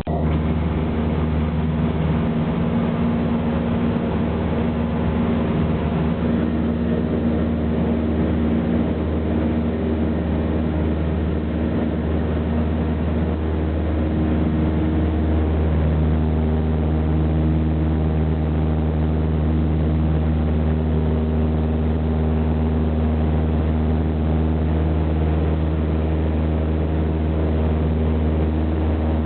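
Cessna 172's piston engine and propeller droning steadily, heard from inside the cabin. The tone shifts slightly about halfway through.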